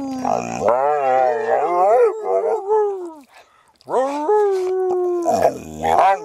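Pit bull howling in long, wavering howls that fall away about three seconds in, then another held howl and shorter ones after a brief pause, with a person howling along.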